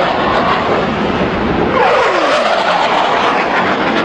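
Fighter jet making a low, fast pass: a loud, steady roar with a whine that drops sharply in pitch about two seconds in as the jet goes by.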